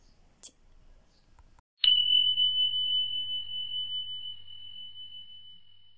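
A single bell ding: a sharp strike about two seconds in, then one clear high tone that slowly fades away over several seconds.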